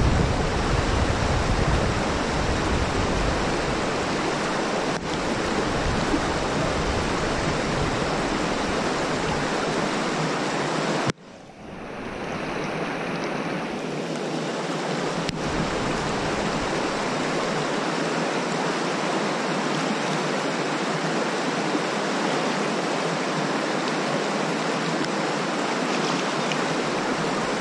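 River rapids rushing steadily over rocks, close by. The sound cuts out sharply for a moment about eleven seconds in, then swells back.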